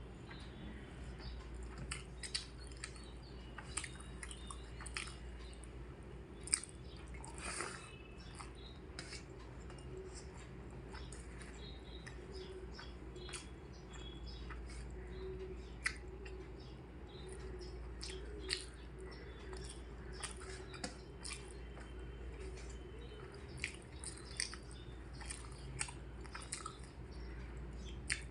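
A person chewing food close to the microphone, with many short mouth clicks and smacks, over a steady low hum.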